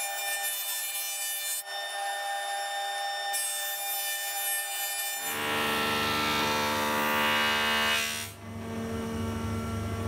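Jointer running as a reclaimed hardwood board is fed across its cutterhead, the knives planing the face flat. The cut is loudest from about five to eight seconds in, then drops back to the motor's steady hum.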